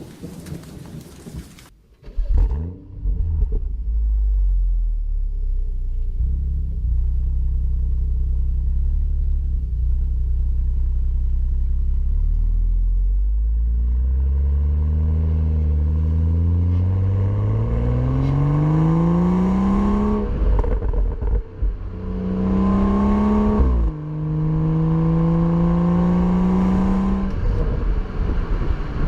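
BMW M235i's turbocharged 3.0-litre inline-six exhaust: the engine starts about two seconds in with a short loud burst, settles to a steady low idle, then pulls away, rising in pitch through the gears with upshifts heard as sudden drops in pitch around the two-thirds mark.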